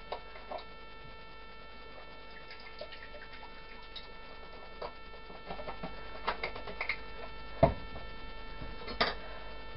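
A steady electrical hum with scattered small clicks and knocks from a carton and pots being handled. The sharpest knock comes about three-quarters of the way through, and another follows about a second later.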